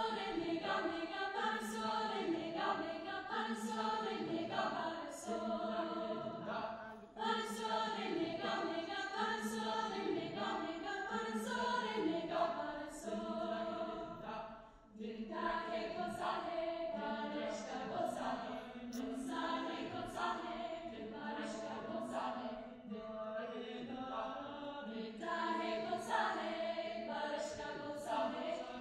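Mixed youth choir singing a cappella in several parts, with sharply articulated consonants, and two brief dips in the sound, about a quarter and halfway through.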